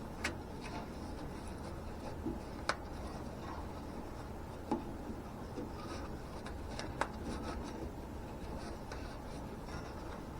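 Hands working on wiring under a car: rubbing and handling noises with a few scattered sharp clicks, over a steady low hum.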